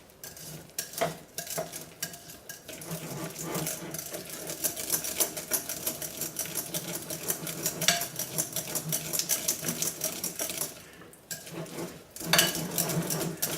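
A utensil stirring and scraping hot-process soap that has cooked to a thick gel in a mixing bowl, a quick run of clicks and scrapes several times a second, easing off briefly near the end.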